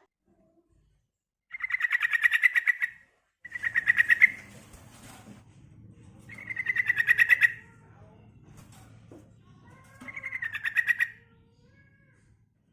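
Female yellow-vented bulbul (trucukan) calling: four bursts of rapid chattering notes, each about a second long, a few seconds apart. This is the call a female gives to draw males, played as a lure to get male bulbuls to answer and sing.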